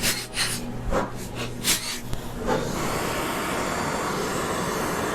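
A few short clicks and scrapes of hand-tool work on an engine, then a steady rushing noise starts suddenly about two and a half seconds in and continues.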